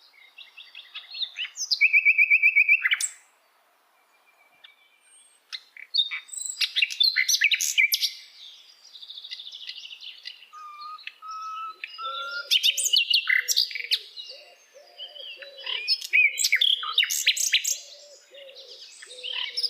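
Songbirds singing and chirping: varied chirps, whistles and a fast trill about two seconds in. After a short lull the calls grow busier and overlap, with a lower repeated warble joining from about halfway through.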